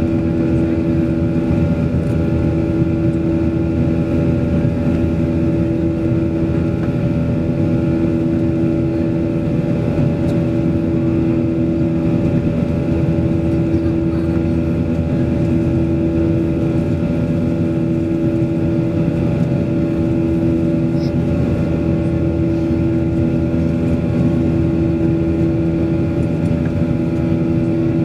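Steady cabin drone of a Boeing 737-800 in flight, heard inside the cabin over the wing: the CFM56-7B turbofan engines' constant rumble with a steady hum of several pitches riding on it.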